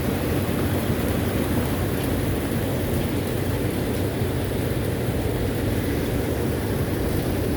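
Heavy storm rain with strong wind, a steady dense wash of noise at an even level; the hailstorm has turned mostly to rain.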